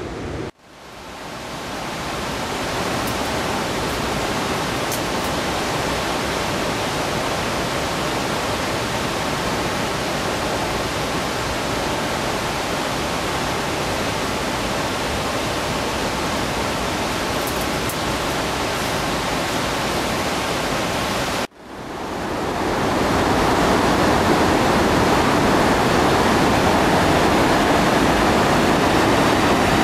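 Floodwater rushing steadily out of a reservoir's overflow spillway outlet tunnel into its stone channel, the overflow running in full flood. The sound cuts out briefly twice and comes back louder after the second break.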